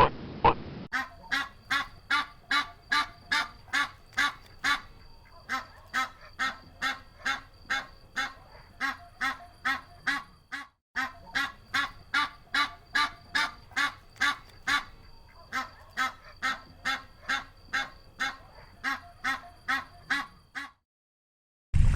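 Waterfowl calling in a steady, rapid series of short nasal honks, about two a second, with a brief break about halfway through.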